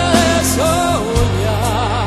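Background music from a pop song: a wavering melody line with vibrato over sustained bass notes.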